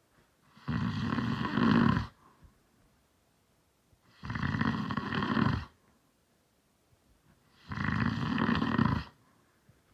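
A man snoring: three snores about three and a half seconds apart, each lasting about a second and a half, with near-quiet breaths between.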